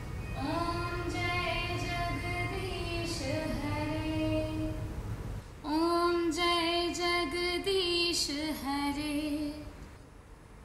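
A woman singing solo, a slow devotional song in two long phrases of held, wavering notes. The singing stops about ten seconds in.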